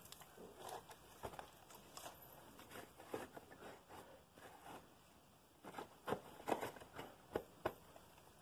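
Faint scattered knocks, scrapes and rustles of handling close by, with a run of sharper knocks about six to eight seconds in.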